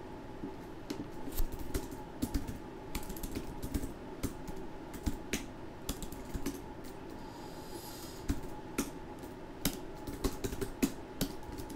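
Typing on a computer keyboard: irregular runs of keystroke clicks with short pauses between them, over a faint steady hum.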